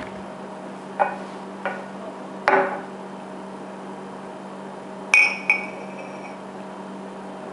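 Tall drinking glass handled on a granite countertop: three light knocks in the first few seconds, then a sharp glass clink just after five seconds, struck twice in quick succession and ringing briefly. A steady low hum runs underneath.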